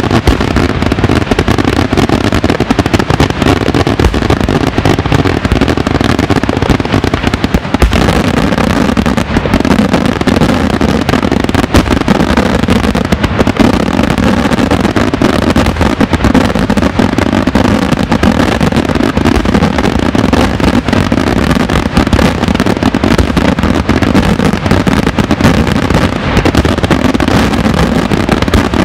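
Daytime fireworks barrage: a loud, unbroken stream of rapid bangs and crackling from shells bursting low in the air.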